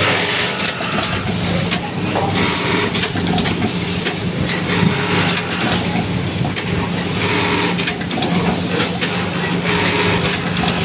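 Electronic button-sewing machine with an automatic vibratory button feeder, sewing buttons onto a shirt in repeated short cycles. Brief bursts of machine noise come every second or two over a steady low hum.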